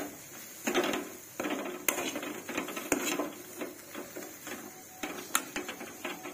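Metal spoon scraping and knocking against an aluminium kadhai as grated cauliflower filling is stirred, in irregular clusters of strokes.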